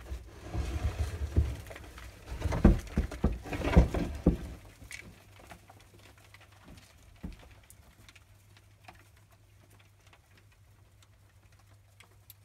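Many feeder grasshoppers crawling and hopping about on bran substrate in a breeding crate, making a patter of light ticks and rustles. For the first four seconds or so there is louder rustling with knocks; after that it thins to faint scattered ticks over a faint steady low hum.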